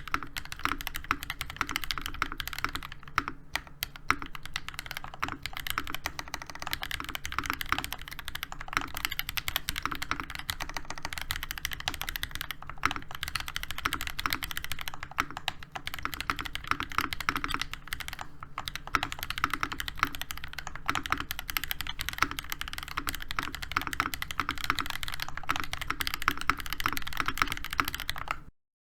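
Fast, continuous typing on a NovelKeys NK87 Entry Edition mechanical keyboard: a dense run of key strokes on hand-lubed Gateron Oil King linear switches in a brass plate, under ABS Cherry-profile keycaps. The sound cuts off abruptly to silence at the very end.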